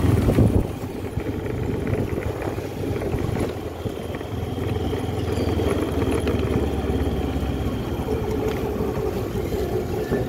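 Engine and road noise of a moving motorised two-wheeler, running steadily.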